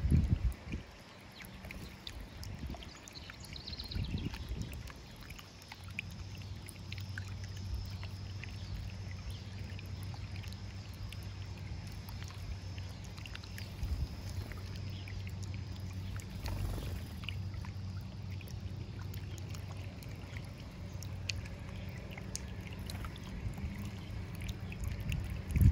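Small fountain in a stone birdbath bubbling and trickling over rocks into the shallow basin, under a low steady hum, with scattered faint ticks and a few low thumps.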